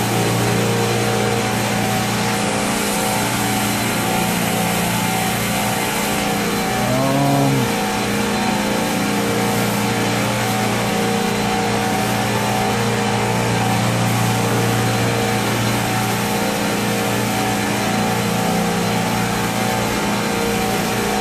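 Steady machinery hum of a running Multistack modular chiller in a plant room, a constant drone with a low electrical-motor tone. About seven seconds in, a brief tone rises and falls.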